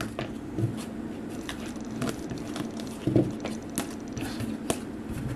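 Hard plastic card toploaders being handled, stacked and set down on the table: a string of light, irregular plastic clicks and taps.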